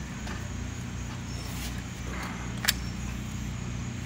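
Portable generator running with a steady low hum. A single sharp clink comes about two and a half seconds in, as the wheel is worked onto the hub.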